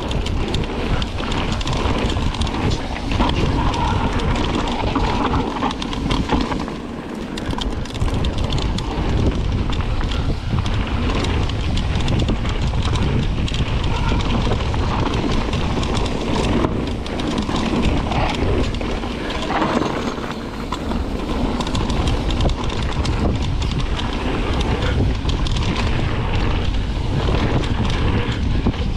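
Mountain bike rolling fast down a dirt trail: tyres crunching and crackling over packed earth and loose leaves, the bike rattling, with wind buffeting the camera microphone.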